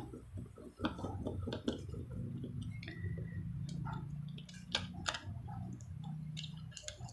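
Faint clicks and small handling noises of wire leads and terminal connectors being pulled off the field-coil wiring inside an opened Makita electric drill, with a low steady hum in the background.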